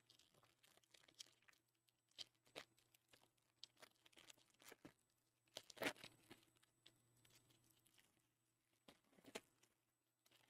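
Faint crinkling and tearing of a foil trading-card pack wrapper and cards being handled: scattered soft rustles and clicks, with one louder crackle about six seconds in.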